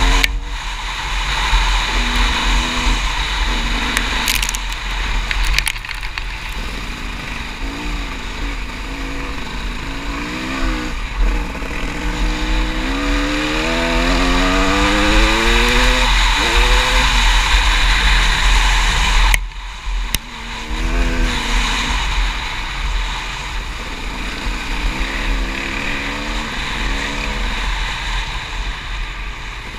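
Off-road vehicle engine running hard on a trail, its pitch rising and falling as the throttle is worked, with a run of climbing revs in the middle. About two-thirds of the way through the throttle is cut suddenly, then the engine picks up again. A heavy wind rumble on the microphone runs under it.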